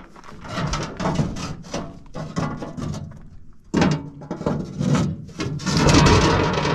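Steel diamond-plate floor panel of a Komatsu D31 bulldozer being lifted and shifted aside: a run of metal knocks, clanks and scrapes, the loudest and longest scrape near the end.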